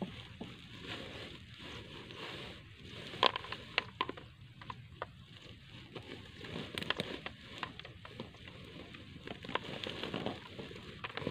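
Rustling and crackling of a nylon fishing net being handled and worked into a woven plastic sack, with scattered sharp clicks and ticks.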